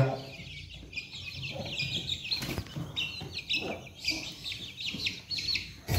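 Chicken chicks peeping: a quick run of short, high chirps, sparse at first and thick from about halfway.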